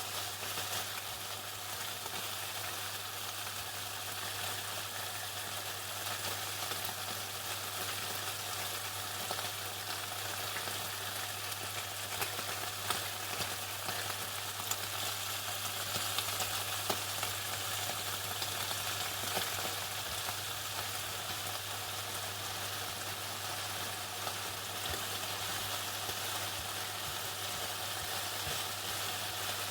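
Chicken frying in hot oil: a steady, dense crackle and sizzle with scattered sharper pops, over a low steady hum.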